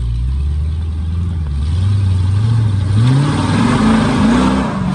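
Off-road Jeep's engine running low and steady, then revving up and down in several surges about two seconds in as it climbs over rocks, with a hiss of noise alongside the revs.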